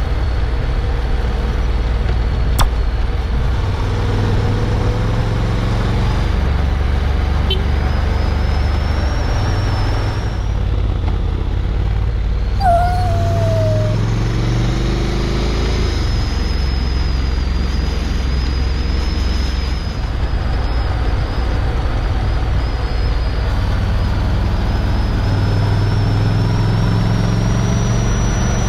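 Honda X-ADV's 745 cc parallel-twin engine running under way, its note stepping up and down several times, over steady wind and tyre noise. About halfway through a dog gives a brief falling yelp.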